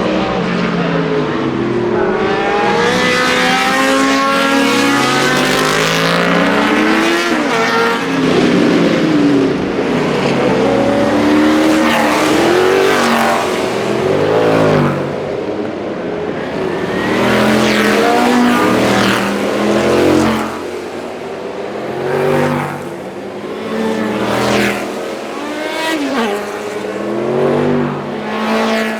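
Historic race cars at racing speed, one after another, their engines revving up and dropping back through gear changes, with a string of separate passes in the second half.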